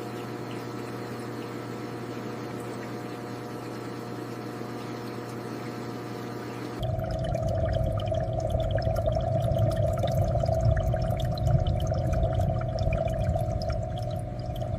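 Aquarium water trickling and bubbling over a steady low hum. About seven seconds in it steps up to a louder stretch crowded with small bubble pops and drips.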